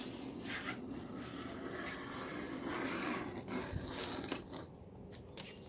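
Red release liner being peeled off 3M double-sided tape from behind a stainless steel bumper guard: a continuous peeling noise for about three and a half seconds, then a few light clicks.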